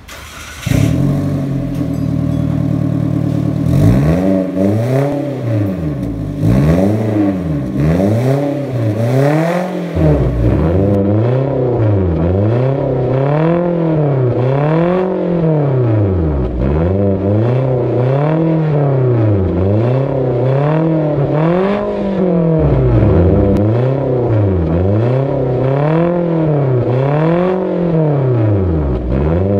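A 2018 Toyota Avanza's four-cylinder engine running through an aftermarket catback exhaust with dual exits. It idles for the first few seconds, then is revved over and over, blipped up toward about 5,000 rpm, its note rising and falling about every second and a half.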